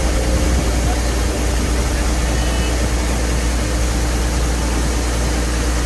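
Heavy engine of a rice combine harvester running steadily, with a constant low hum under a broad mechanical rushing noise.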